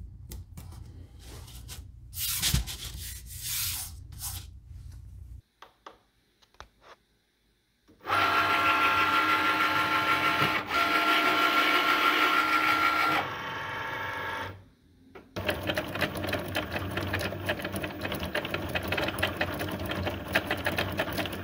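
Painter's tape rustling as it is laid on a cutting mat, then a Cricut Maker cutting machine running. A steady motor whine starts about eight seconds in and breaks off briefly past the middle. A busier, rapid whirring of the carriage follows as the machine cuts a stencil out of blue painter's tape.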